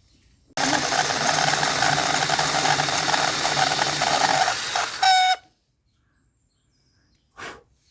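Electric drill running steadily for about four seconds, then stopping; a short burst of it follows near the end.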